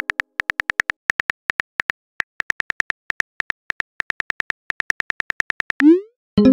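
Phone keyboard tap sounds from a texting app: a fast run of short clicks, about eight a second with brief pauses, as a message is typed. Near the end a short rising swoosh as the message is sent, then the start of a pitched chime.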